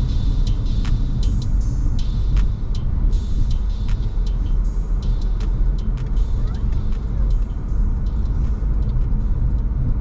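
Car driving slowly in city traffic, heard from inside: a steady low rumble of engine and road noise, with scattered short clicks.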